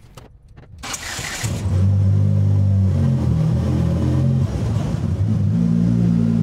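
Turbocharged car's engine pulling away and accelerating on a test drive, running on a freshly installed fuel system. A short hiss comes about a second in, then a loud engine note whose pitch steps up and down a few times.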